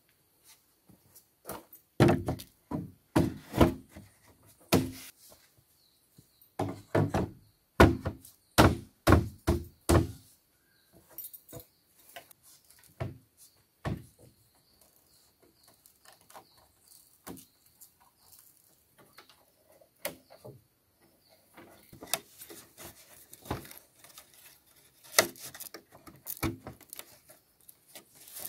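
Hollow bamboo poles knocking against each other and the frame as they are set in place: two runs of sharp knocks in the first ten seconds, then quieter clicks and rustling as a pole is lashed with a bark strip.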